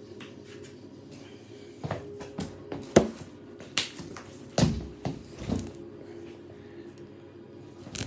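Handling noise close to the microphone: a string of knocks, bumps and rustles as a person moves about and picks up a cat, loudest about three seconds in and ending around six seconds, over a faint steady hum.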